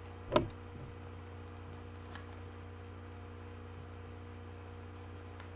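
Steady low electrical hum. A sharp click comes shortly after the start and a faint tick about two seconds in, from a CD case and its booklet being handled.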